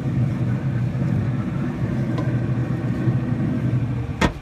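Steady low rumble, then the metal lid of a Traeger pellet smoker being shut with one sharp clang about four seconds in.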